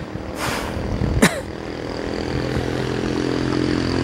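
A vehicle engine running at a steady pitch, growing louder from about two seconds in, with a sharp click about a second in.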